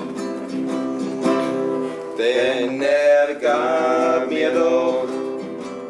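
Acoustic guitar strummed as accompaniment to a man singing a slow German folk song.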